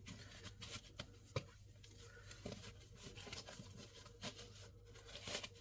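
Faint handling noises: light scattered clicks and rubbing from small parts being handled, with a few sharper clicks about a second in and near the end.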